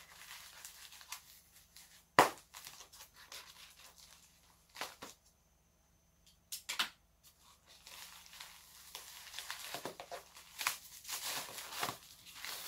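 Packaging being pulled and torn open by hand, with crinkling, crunching and scattered sharp snaps of polystyrene and wrapping. The loudest snap is about two seconds in, there is a short lull around the middle, and near the end the crackling turns into a busy run.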